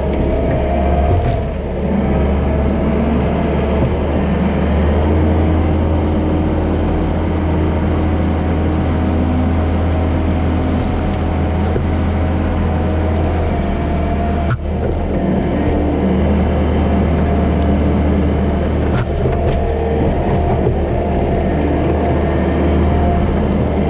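Kubota SVL90-2 compact track loader's diesel engine running steadily under load, a loud low drone with a higher whine above it, the engine note shifting slightly as the machine works.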